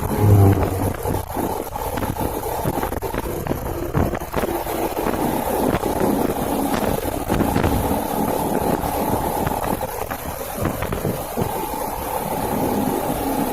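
Small motorcycle engine running under way, with wind buffeting the microphone in uneven gusts.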